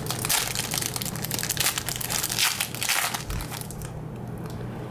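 Clear plastic wrapper of a trading-card pack being torn open and crinkled by hand, a dense crackling that stops about three seconds in as the cards come out.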